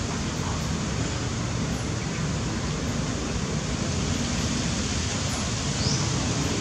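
Steady rushing noise with a low rumble underneath, unchanging and without distinct events.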